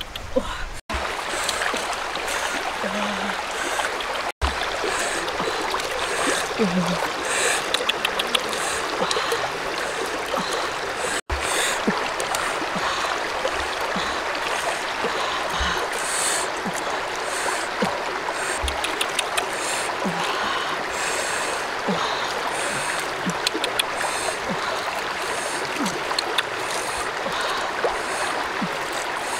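Steady rush of running stream water, with small clicks and crackles of boiled eggshells being cracked and peeled by hand.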